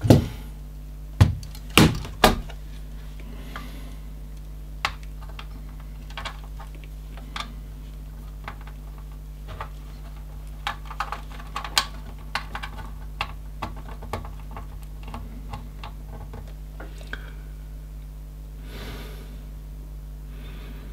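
Scattered clicks and taps of test probes and small tools being handled on an electronic circuit board while capacitors are measured in circuit, with a few louder knocks in the first two and a half seconds. A steady low hum runs underneath.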